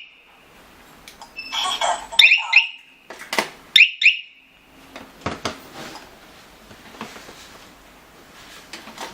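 Electronic beeps from a G2C touch-keypad home alarm panel: a short burst of noise about 1.5 s in, then two quick chirps about 2 s in and two more about 4 s in, each pair trailing into a brief steady tone. Faint taps follow in the second half.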